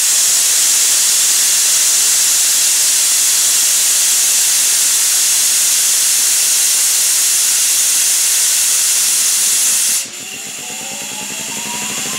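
Compressed air blowing off from the Ingersoll Rand 25E air compressor in a loud, steady hiss as tank pressure drops from about 135 psi toward 100 psi. The hiss cuts off about ten seconds in, and the compressor's 25 HP electric motor then starts, its whine rising in pitch.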